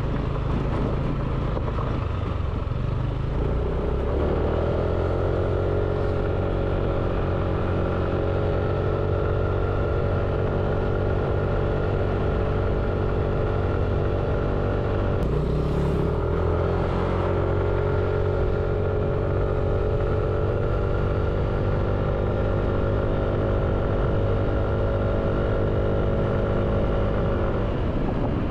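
Small quadcopter drone's motors and propellers running, a steady buzzing whine of several tones at once whose pitch shifts slightly about four seconds in and again about halfway through.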